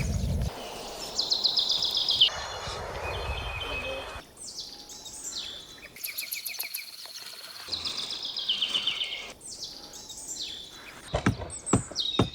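Songbirds singing in repeated high trills and quick falling whistles, over a background hiss that stops about four seconds in. A few sharp knocks come near the end.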